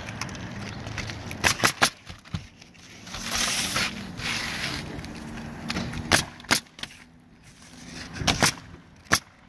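Pneumatic coil roofing nailer firing nails through asphalt shingles, several sharp shots in small clusters. Between the volleys comes a scraping sound as a shingle is slid into place on the roof.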